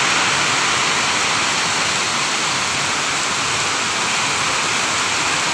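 Heavy rain pouring down in a windstorm: a steady, dense hiss with no let-up.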